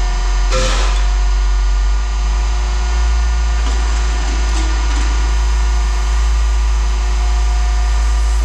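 A machine running steadily with a loud, low hum, with a short rattle about half a second in.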